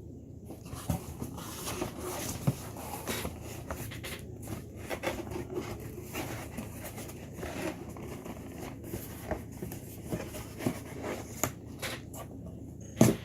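Rustling and crinkling of plastic air-pillow packing and a cardboard box being dug through by hand, with many small knocks and one sharp knock near the end.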